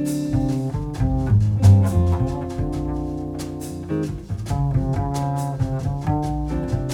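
Instrumental background music with a low bass line and a steady beat.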